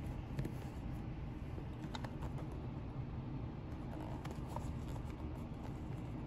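A few light, scattered clicks and taps from a leather dress shoe being picked up and turned over in the hand, over a steady low background hum.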